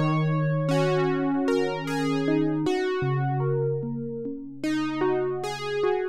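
Dave Smith Prophet-6 six-voice analog polysynth played live as a chord progression with a keyboard-like patch. Each chord starts bright and mellows quickly over longer-held low notes.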